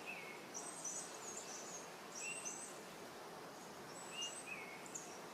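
Faint forest ambience of small birds chirping over a steady soft hiss. The short high chirps come in clusters every second or two, with a few lower calls between them.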